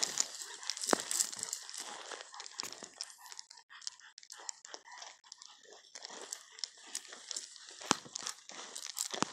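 Irregular rustling and crackling of footsteps moving through grass and brush.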